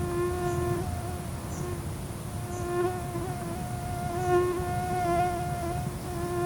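A flying insect buzzing at a steady pitch, breaking off and coming back several times and swelling louder past the middle, over a low rumble.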